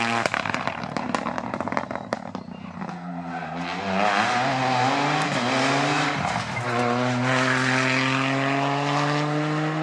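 Rally car engine under hard acceleration, revving up through the gears with a sharp drop in pitch at a shift about six seconds in, then climbing steadily. Sharp crackles and pops come through the first couple of seconds.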